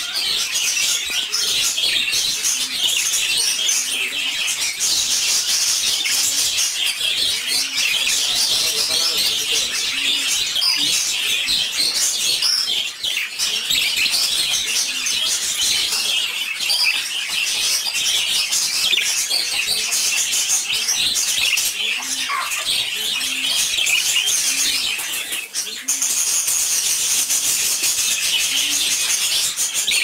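Budgerigars chattering and warbling without a break, a dense stream of high chirps and twitters.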